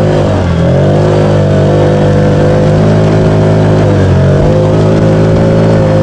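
Side-by-side engine running hard under load while towing snow tubes. Its revs dip briefly twice, about a quarter second in and again about four seconds in, and climb back each time.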